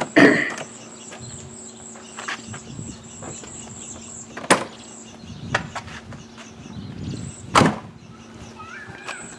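A few sharp clunks and knocks from a 1978 Chevrolet Corvette's door and cabin hood release as the hood is being opened, the loudest about a quarter-second in and again near the end. A steady high insect buzz runs underneath and drops out for a few seconds midway.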